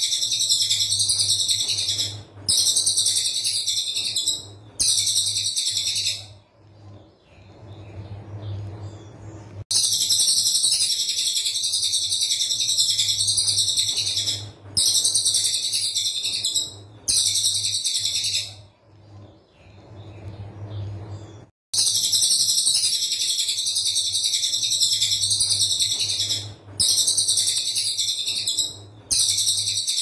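Brown cililin singing rapid, dense high-pitched trilled bursts of a few seconds each. The bursts come in runs of three separated by short breaks, with longer pauses of about three seconds between the runs, over a steady low hum.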